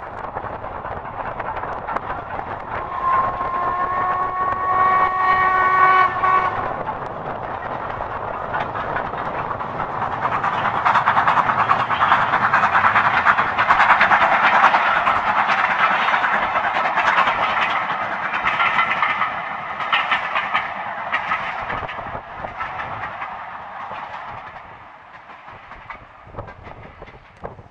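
Steam locomotive's whistle sounds once, about three seconds in, a steady multi-note blast lasting a few seconds. Then the locomotive and its coaches pass at speed: the working exhaust and wheel clatter build to a peak mid-way and fade as the train goes by.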